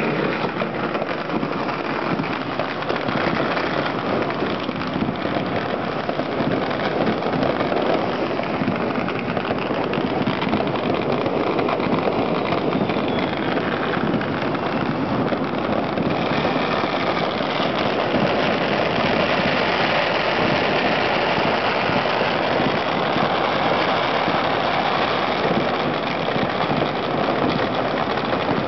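Fireworks and firecrackers going off without a break on every side, countless overlapping pops and bangs merging into one constant crackling din, heard through an open window.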